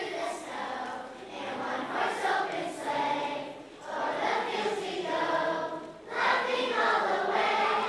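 Children's chorus singing a Christmas carol in phrases, with short breaks about four and six seconds in.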